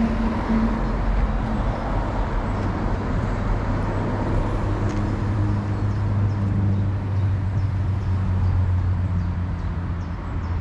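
Road traffic: a steady wash of passing vehicles with a low, steady engine drone.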